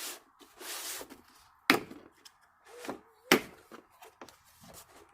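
Rustling and handling of a grease coupler kit's packaging and parts, with two sharp clacks about a second and a half apart.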